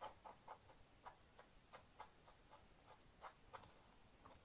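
Dip pen's metal nib scratching on lined paper in short, faint strokes, about three a second, as it inks in a small drawing.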